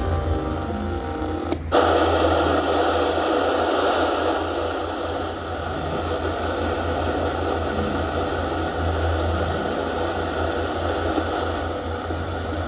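Radio static: a steady hiss over a low hum, coming in abruptly with a click about one and a half seconds in.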